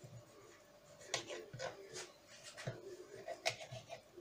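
Knife scraping and clicking against a cutting board as raw trout is filleted: several short, sharp strokes starting about a second in, over a faint steady hum.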